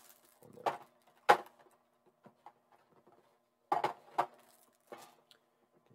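Short, sharp clicks and knocks from handling an action figure's display stand and base, about five in all, the loudest about a second in.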